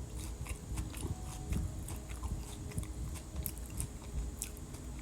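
Close-up chewing of a Dubai chocolate cookie, with irregular crunches and small crackles as it is bitten and chewed.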